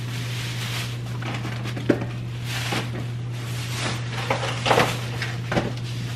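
Groceries being unpacked: a plastic grocery bag rustling and items being handled and set down, with a few short knocks, over a steady low hum.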